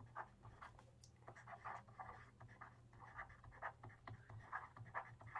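Faint scratching of a stylus writing on a screen, in quick short strokes as a line of handwriting goes down, over a steady low hum.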